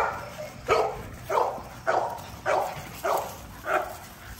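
A French bulldog barking repeatedly in a steady rhythm: about seven short barks, roughly one every half second or so, stopping shortly before the end.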